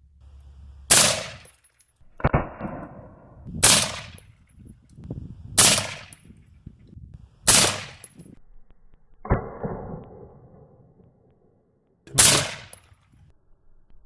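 Five loud gunshots, spaced about two seconds apart with a longer gap before the last, each followed by a short echo.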